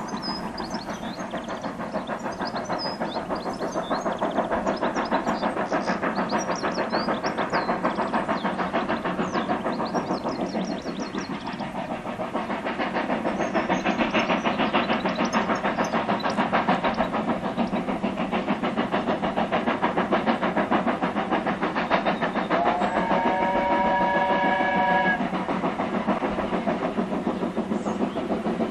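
Steam locomotive hauling a train of coaches, its exhaust beating rapidly and steadily. About 23 seconds in, its whistle sounds once, held for about two and a half seconds.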